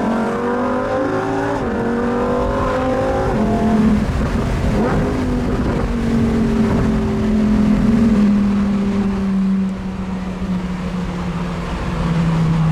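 Lamborghini Huracan Performante Spyder's V10 engine pulling under way. Its pitch rises over the first few seconds, then holds steadier and slowly eases down.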